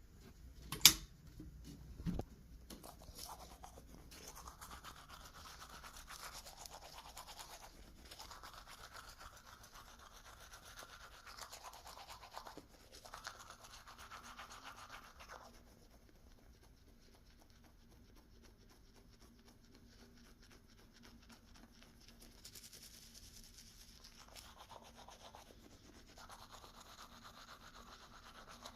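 Repeated stretches of faint raspy noise, each a few seconds long, which the recorder takes for a neighbour's loud throat clearing. A sharp click about a second in is the loudest sound.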